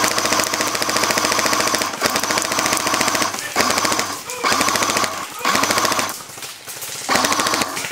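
Airsoft guns firing on full auto, a fast mechanical rattle in long bursts broken by several short pauses.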